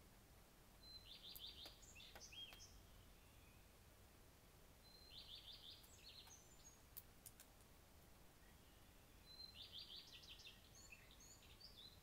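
A songbird sings three short phrases about four seconds apart. Each phrase opens with a quick run of repeated notes and goes on to a few varied higher notes. The song is faint, over a quiet outdoor background with a few soft clicks.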